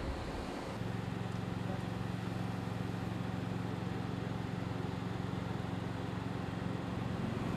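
Steady low mechanical hum, like an engine or motor running, that comes in about a second in and holds evenly over a faint outdoor noise bed.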